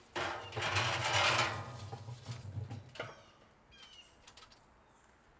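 Lit charcoal poured from a chimney starter into a steel barrel smoker's charcoal basket: a rush of clattering, rattling coals with a low rumble, fading out over about three seconds, then a single sharp clink.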